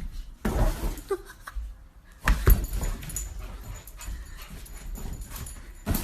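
A dog making short vocal sounds, with sudden louder noises about half a second in and again just after two seconds in.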